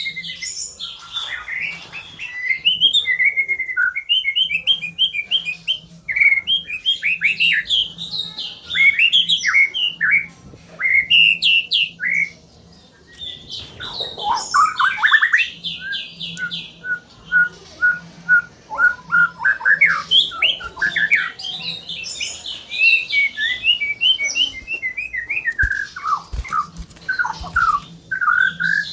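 White-rumped shama (murai batu) singing a long, varied song of clear whistled phrases, quick runs of repeated notes and a few harsher rasping notes, with a brief pause about halfway through.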